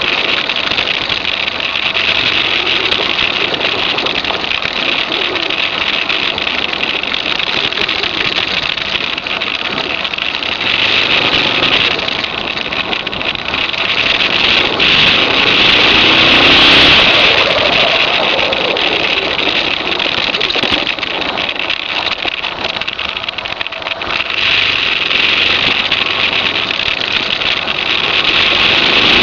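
Suzuki DR650's single-cylinder four-stroke engine running under way, its note rising and falling with the throttle and loudest about halfway through, under a steady rush of wind noise on the microphone.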